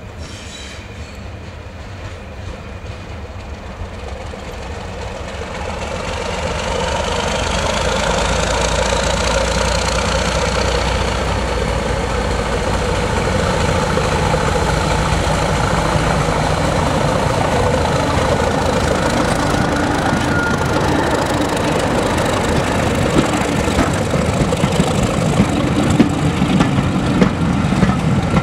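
Class 31 diesel locomotive's engine running as it approaches hauling coaches, growing louder over the first several seconds, with a whine rising in pitch. Near the end, wheels knock over the rail joints as the coaches pass.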